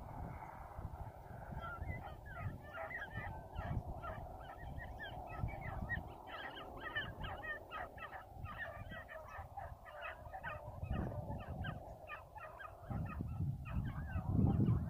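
A pack of beagles baying on a rabbit chase: many overlapping short cries ring out together for most of the stretch. Wind rumbles on the microphone, heavier near the end.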